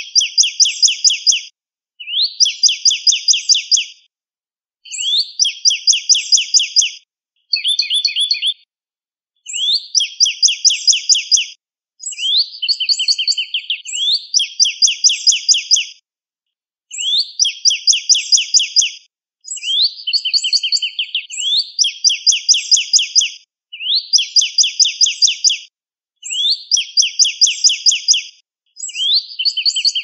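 Northern cardinal singing: phrase after phrase of quick, clear slurred whistles, each phrase about two seconds long with short pauses between.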